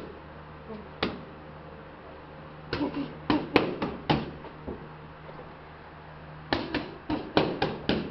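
Boxing gloves smacking against focus mitts during pad work. A single punch lands about a second in, then two quick flurries of about six punches each follow, one in the middle and one near the end.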